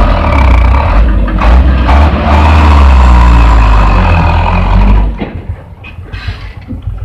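Loaded diesel dump truck's engine pulling hard across soft ground, loud and low. About five seconds in, it drops away suddenly.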